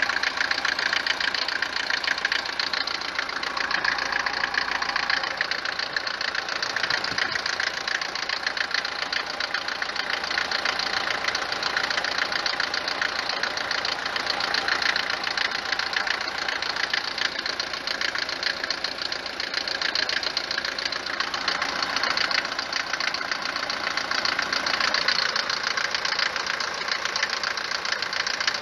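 Mercedes-Benz W124 diesel engine idling with a rapid knocking clatter. The mechanic takes it most likely for worn or tapered cylinder bores, or else for the injector prechambers, the injectors, or the injection pump's timing advance.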